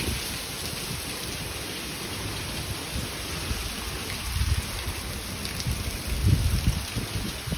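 Heavy rain pouring steadily onto the lawn, pavement and porch, with low rumbles rising through it about four and a half and six seconds in.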